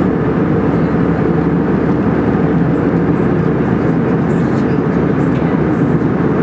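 Airliner cabin noise in flight at altitude: the jet engines and the air rushing past the fuselage, heard from a window seat as a steady, even rush of noise, strongest low down.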